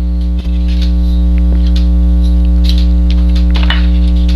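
Loud, steady electrical mains hum with many overtones, with a few faint clicks and light rustles of small parts being handled over it.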